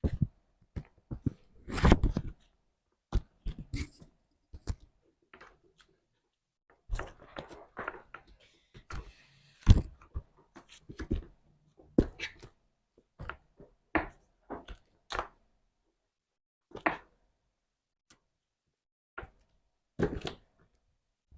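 Slime being squeezed and worked by hand: irregular wet clicks and pops, some single and sharp, some in short crackling clusters, with clean silent gaps between.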